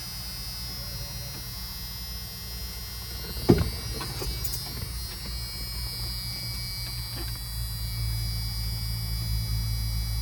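Replacement car radio giving a steady electrical hum and buzz through the speakers, not tuned to a station, while its preset buttons are tried. A sharp click about three and a half seconds in, and a few faint ticks later; the hum grows a little louder near the end.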